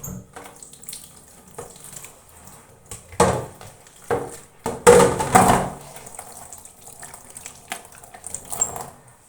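Water running from a tap into a sink in short uneven spells, loudest twice in the middle, with light knocks of kitchenware.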